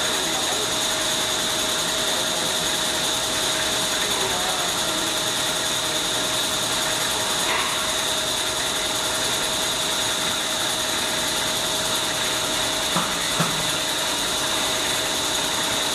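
Two-head paper rope making machine running steadily, its twisting heads and winding spools giving a constant mechanical whir with a steady high whine. Two small clicks come about three seconds before the end.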